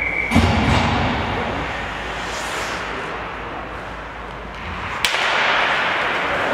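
Ice hockey rink noise around a faceoff: a short steady high tone cuts off just after the start, followed by a knock. About five seconds in, a single sharp crack of stick on puck or stick on stick as the puck is dropped, then louder scraping of skates on ice as play starts.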